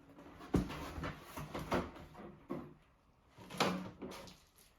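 Handling noise while unboxing a coffee machine: a few sharp knocks and clunks of hard parts being set down or fitted, with scraping and rustling in between. The loudest clunk comes a little past the middle.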